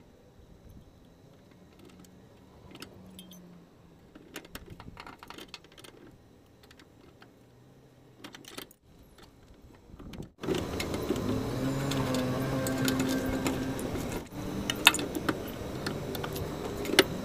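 Light metallic clinks and clicks of a spanner working on the fuel-line fittings under a car. About ten seconds in, a much louder steady hum with a low held tone cuts in suddenly, with a few sharp clicks over it.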